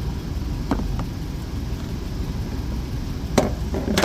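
Jeep Wrangler engine idling steadily, with a few light plastic clicks as the fuse box cover is handled, and a sharper click about three and a half seconds in.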